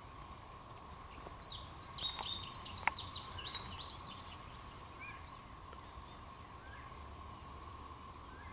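A faint, steady, high-pitched hum, like distant factory machinery, with a low rumble under it. About a second in, a songbird sings a quick run of high, falling chirps for a couple of seconds, with one sharp click in the middle and a few scattered chirps after it.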